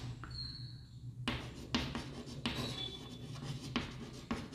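Chalk writing on a blackboard: a series of short scratching strokes, with a brief pause about half a second in before the writing resumes.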